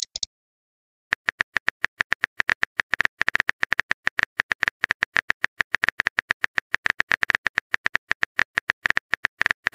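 Keyboard typing sound effect: a run of quick, sharp taps, several a second and slightly uneven, starting about a second in.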